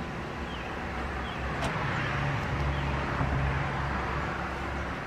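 A road vehicle passing, its engine noise swelling and then fading, with a single sharp click about one and a half seconds in.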